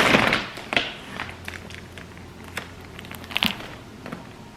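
Packaging being handled and opened: a loud rustle at the start, then scattered crackles and clicks as the wrapping is worked.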